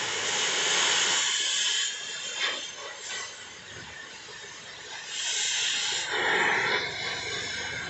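Harsh hissing noise of metal-cutting work, loud for the first two seconds, easing off, then loud again about five to six seconds in.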